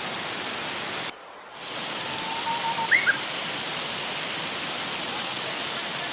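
Steady rushing of a mountain stream. The rushing cuts out briefly about a second in, and a bird gives a couple of short chirps around three seconds in.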